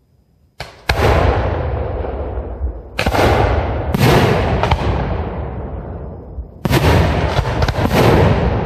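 Aerial firework shells bursting in a display: a pair of sharp bangs about a second in, single bangs at about three and four seconds, and a quick run of several bangs near the end, each rolling away in a long echo.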